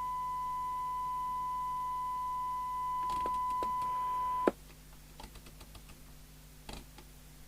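A steady 1 kHz test tone coming from the CB radio's speaker during alignment, which cuts off abruptly with a click about four and a half seconds in. It is followed by a few faint clicks and knocks from handling the set.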